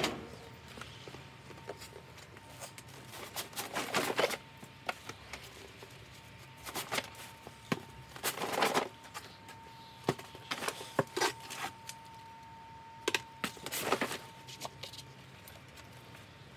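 Rustling and clunking of riding gear and a bag being handled and packed, in scattered bursts with small clicks between, and a faint steady high whine through the middle.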